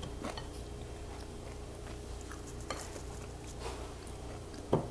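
Faint close-up eating sounds from eating with the hands: fingers working rice on a plate, and chewing. A few soft clicks, and one louder click near the end.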